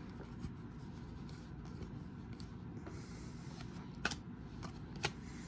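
Basketball trading cards being flipped through by hand, card stock faintly sliding and rubbing, with two light clicks near the end.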